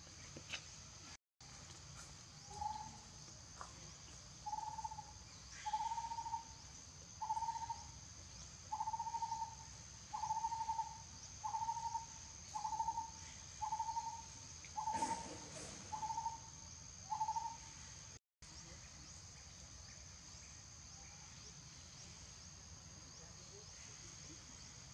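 A bird gives about a dozen short, even hoots on one pitch, spaced a little over a second apart, over a steady high-pitched insect drone.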